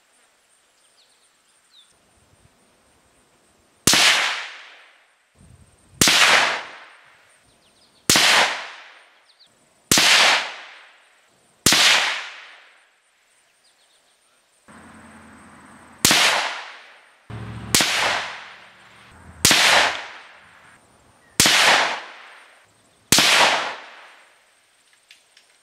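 Savage 93 bolt-action rifle in .17 HMR firing single shots about two seconds apart, each a sharp crack that rings off over about a second; around eleven shots, with a short pause near the middle. A low steady hum comes in for a few seconds in the second half.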